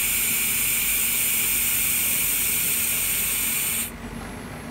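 Handheld fiber laser welder hissing steadily as it welds 2 mm aluminium, then cutting off suddenly about four seconds in when the weld stops.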